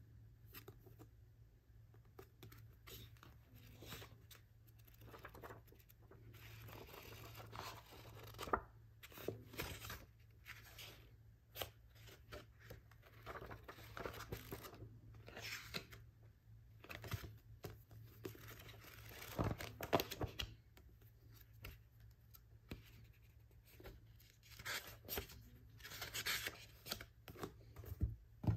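A paperback manga volume being handled: paper rustling as its pages are flipped, with a few sharp knocks, the last as the book is set down on a desk near the end.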